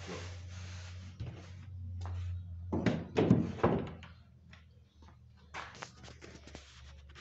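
Three heavy wooden thunks, a little under a second apart, about three seconds in, with a few lighter knocks later, as a finished board panel is lifted off the assembly jig and handled. A steady low hum runs underneath.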